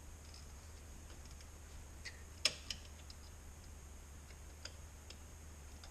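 A few scattered sharp metal taps and clinks, the loudest about two and a half seconds in, from work on a Toyota 4Runner's front brake caliper as a rusty brake pad retaining pin is worked out.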